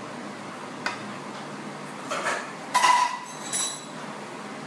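Kitchen knife knocking and scraping on a stone countertop while fresh pasta sheets are cut into strips: a single tap about a second in, short scraping clatter around two to three seconds in, then a bright metallic clink.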